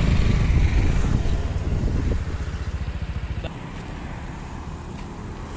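Motorcycle engine running with a steady, even beat and wind rush. It eases off about two seconds in and settles to a quieter idle by about three and a half seconds.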